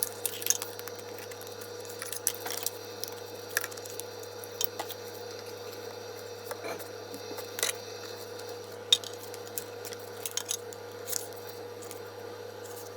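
Plastic Hot Wheels track pieces being handled and fitted together: scattered clicks and taps, over a steady background hum.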